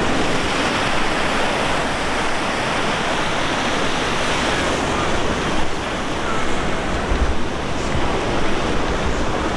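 Steady rushing of a shallow, fast river flowing over gravel bars and small rapids, with some low wind buffeting on the microphone.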